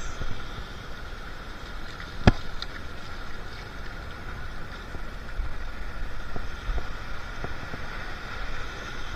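Wind on the microphone with small waves washing on the sand, and one sharp click about two seconds in.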